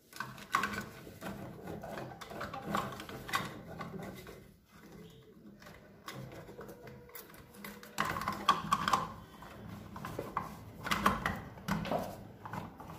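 Plastic clicking and rattling of a terminal cover being handled and snapped over a fridge compressor's newly fitted starting relay, in irregular clicks that come thickest about eight and eleven seconds in.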